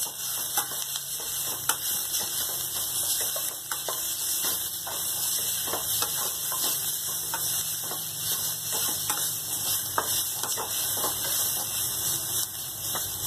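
Fried onions and ground spices sizzling in oil in a metal kadhai while a slotted metal spatula stirs them, scraping and clicking irregularly against the pan over a steady sizzle.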